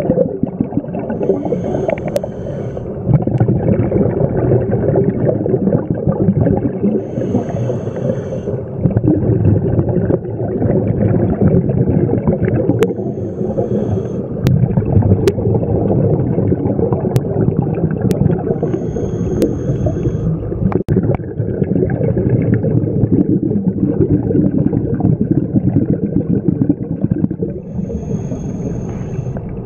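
Scuba diving regulator breathing underwater: a short hissing inhale five times, about every five to nine seconds, between long rumbling bubble exhalations. A few sharp clicks come in the middle.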